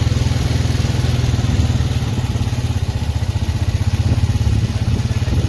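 Farm quad bike's engine running steadily at an even low pitch, with no change in revs.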